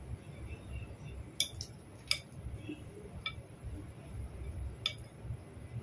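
Fork and spoon clinking against a ceramic bowl as salad leaves are tossed: about five sharp clinks, a few in quick succession around the second second, over a low steady rumble.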